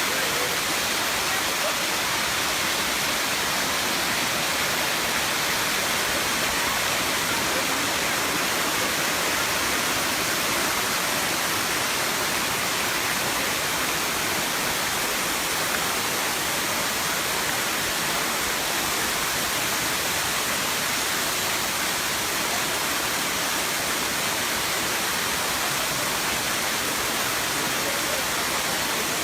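Erawan Waterfall's seventh tier: water pouring down the falls in a steady, even hissing rush.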